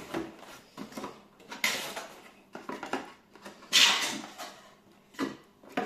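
Cardboard box flaps and inner packaging being opened and handled: irregular rustling and scraping of cardboard, with two louder scrapes about two seconds and four seconds in.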